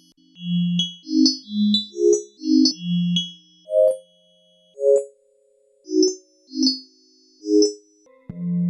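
Digital synthesizer playing a slow melody of separate bell-like notes, each struck sharply and fading quickly, through a Strymon Iridium amp-and-cabinet simulator pedal. Shortly before the end a fuller, sustained synth sound comes in.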